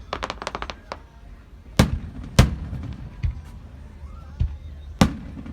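Fireworks going off: a quick string of small crackling pops in the first second, then several separate loud bangs, the biggest about two seconds in and another near the end.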